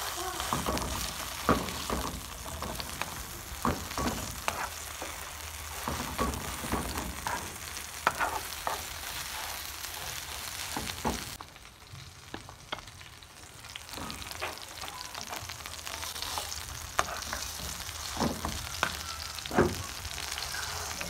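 Meat patties sizzling in hot oil in a frying pan, with a metal spoon now and then scraping and knocking against the pan. The sizzle drops for a couple of seconds about halfway through.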